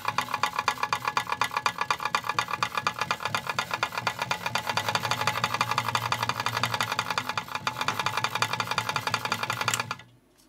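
A slowed DC motor turns a 3D-printed nylon carbon-fiber worm gear on its shaft bearings, making a loud metal noise: a fast, even clicking over a low hum. The noise seems to come from the worm gear assembly, and its cause is unknown. It stops suddenly near the end.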